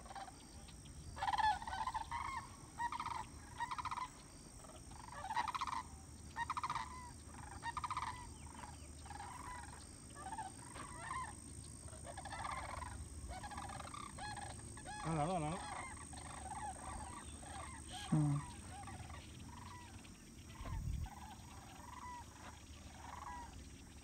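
A flock of sandhill cranes calling: rolling, rattling bugles from several birds at once, a new call about every second and often overlapping.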